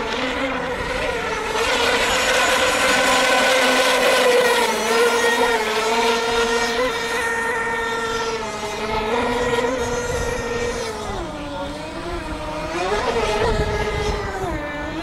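Radio-controlled racing multihull boat's 3.5cc two-stroke glow engine running at full throttle, a high buzzing whine. The pitch holds fairly steady, then drops about eleven seconds in and swings back up near the end as the boat slows and accelerates again.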